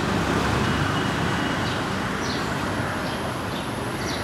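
Steady street traffic noise, with a few faint short high chirps over it.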